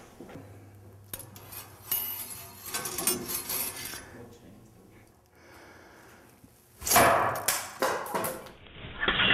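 Metal clicks and clinks as the barrel of a classroom 'monkey gun' projectile launcher is handled and readied. About seven seconds in, the gun fires with a sudden sharp report, followed within a second and a half by a few quick knocks.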